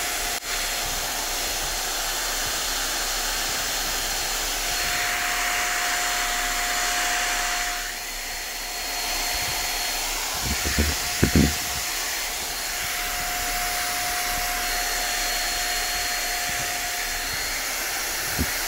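INGCO 500 W electric paint spray gun's turbine motor running steadily: a constant rush of air with a thin high whine, on a spray test with water in its tank. The sound dips briefly about eight seconds in, and a few light knocks come around ten to eleven seconds in.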